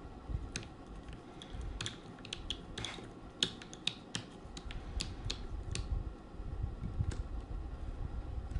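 Small screwdriver backing out the tiny screws that hold a netbook's LCD screen to its brackets, with irregular light clicks and ticks over a low rumble of handling.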